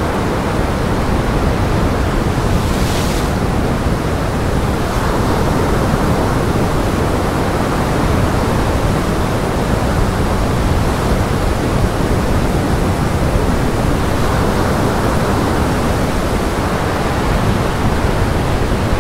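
Gale-force wind rushing over the microphone together with lake waves breaking and washing over a rock breakwater: a steady, heavy rushing noise with a low rumble and no let-up.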